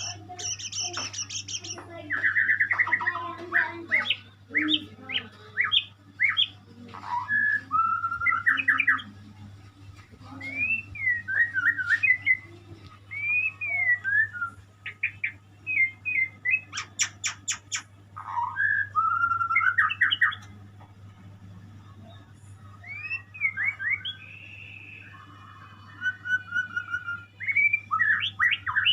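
A murai songbird singing a long, varied song of clear whistled phrases, sliding notes and quick rattling trills, in bursts with short pauses between them. A steady low hum runs underneath.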